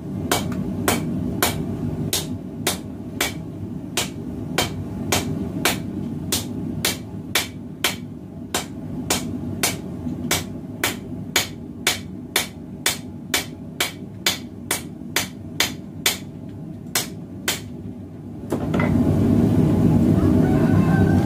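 Hammer blows on hot 1080 carbon steel against an anvil, about two a second, over the steady roar of a propane forge burner. Near the end the hammering stops and the burner's roar gets louder.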